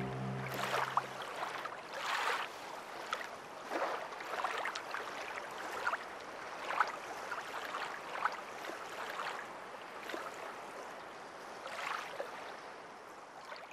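Water lapping and splashing in small irregular waves, faint, easing off toward the end.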